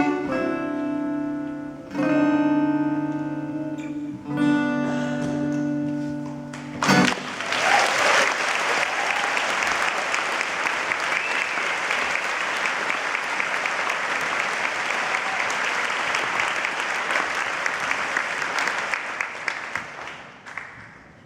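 Acoustic guitar playing the last plucked notes and ringing chords of the song, then audience applause breaking out about seven seconds in and dying away near the end.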